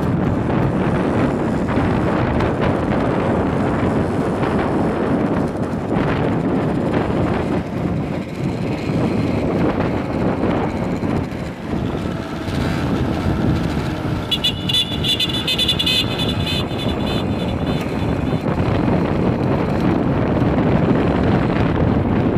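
Motorcycle running steadily, its engine noise mixed with wind rushing over the microphone. A brief high-pitched tone cuts in about two-thirds of the way through.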